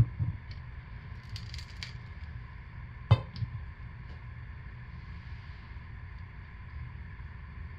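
Wooden wire soap cutter working through a loaf of hot process soap: two sharp knocks of its wooden frame, one at the very start and a louder one about three seconds in, with a few faint clicks between, over a low steady hum.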